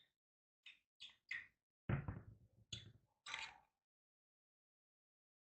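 A series of about six short knocks and taps, light clicks at first, then a heavier, deeper thud about two seconds in and two more knocks after it.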